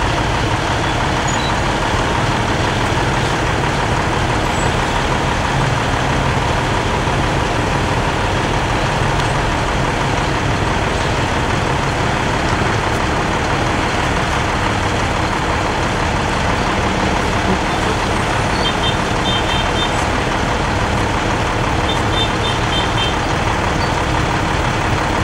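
Heavy truck engine running steadily under load, a continuous low rumble. Near the end come two short runs of quick, faint, high-pitched beeps.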